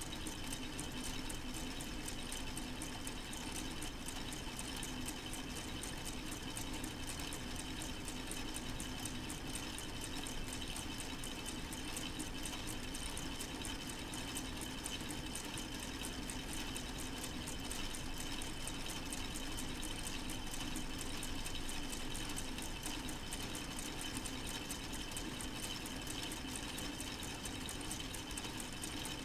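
K'nex solar-powered four-cylinder model engine running steadily: a rapid, even clicking and rattling of its plastic rods, connectors and cranks over a steady hum.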